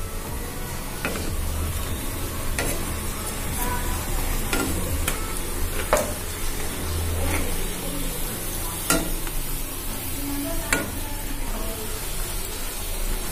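Whole-wheat pooris sizzling as they deep-fry in hot oil, while a perforated steel skimmer presses and turns them. The skimmer clicks and scrapes against the non-stick kadai now and then, about nine times.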